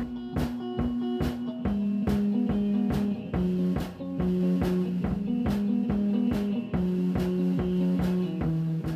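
Outro music: guitar over a drum kit keeping a steady beat of about two hits a second.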